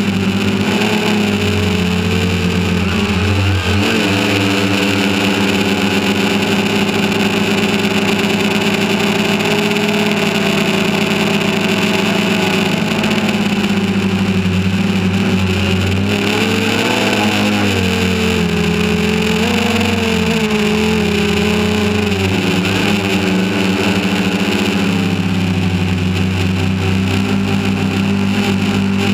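Drone's electric motors and propellers, heard from the camera carried on the drone: a loud, steady hum whose pitch wobbles a few times as the motor speeds change.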